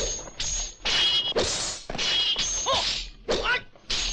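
Dubbed kung fu fight sound effects: a rapid run of whacks and swishes, several with a short metallic ring as weapons clash. A couple of short fighters' yells come about three seconds in.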